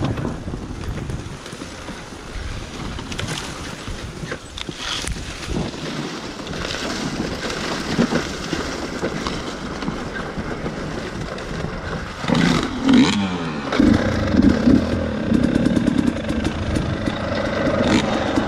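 Dirt bike engine running at low revs on slow trail riding, softer for most of the first twelve seconds, then revved up and down in a few quick blips and running louder after. A few short knocks come through along the way.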